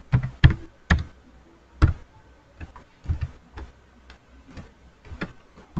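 Computer keyboard being typed on: single keystrokes at an uneven pace, the sharpest few in the first two seconds and lighter taps after that.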